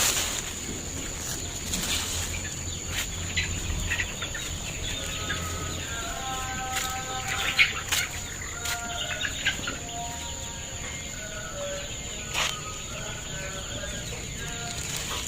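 Young chickens giving many short, quiet calls and clucks, several overlapping, mostly from about five seconds in. A few sharp knocks and a steady high-pitched whine run underneath.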